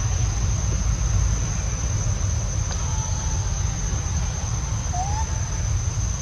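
Outdoor ambience: a steady low rumble of wind on the microphone under a constant high-pitched insect drone, with one short rising chirp about five seconds in.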